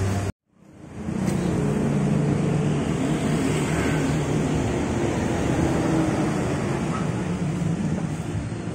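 A Hino GrandEcho 2 provincial bus drives slowly past with its diesel engine running steadily, over street traffic. The sound drops out just after the start and fades back in over about a second.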